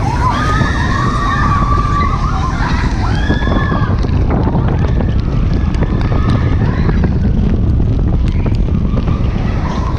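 Euromir steel roller coaster train running at speed: a steady rumble of wheels on track mixed with wind buffeting the on-ride microphone. Over the first three seconds or so there are a few high wavering sounds, rising and falling, plus scattered clicks and rattles.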